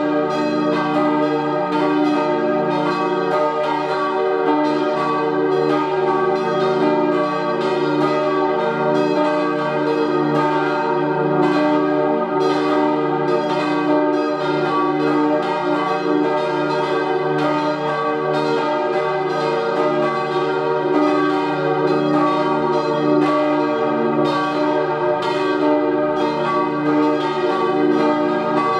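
Church bells from a ring of four bronze bells cast by Rüetschi in 1888 and tuned to an E-flat major chord (E-flat, G, B-flat, E-flat), swinging and striking in a continuous, overlapping peal.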